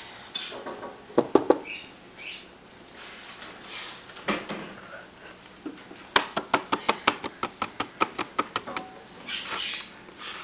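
Fridge magnets clicking and tapping against a refrigerator door as a cat paws at them. A few sharp knocks come about a second in, then a quick run of light clicks, several a second, for about three seconds past the middle.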